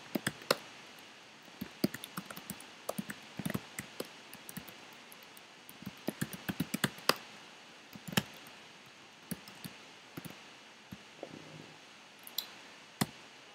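Computer keyboard being typed on: irregular runs of quick key clicks with short pauses between them.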